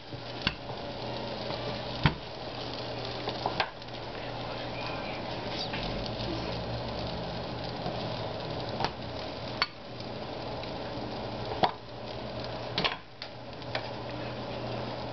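Flatbread sizzling steadily in a hot buttered frying pan, with a few sharp clicks and knocks scattered through.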